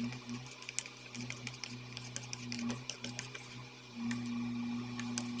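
Metal spoon stirring thick shampoo in a steel bowl: rapid, irregular clicks and scrapes of spoon on steel. A steady low hum runs underneath.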